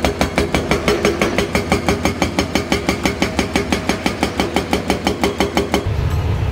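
Rapid, even hammering of a rock-breaker excavator's breaker, about eight knocks a second over a steady whirring tone. It stops about six seconds in, leaving a low rumble.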